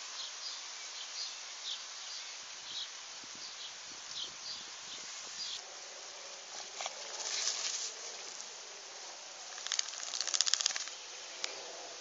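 Footsteps scuffing along a dirt and grass track, about two steps a second, over a steady outdoor hiss, with two louder bursts of rustling and scraping in the second half.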